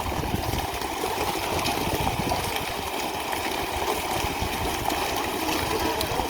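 A small engine running steadily, with some water noise.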